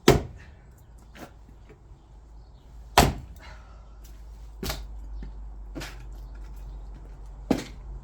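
An axe chopping wood: five or six sharp blows a second or more apart, the loudest two near the start and about three seconds in.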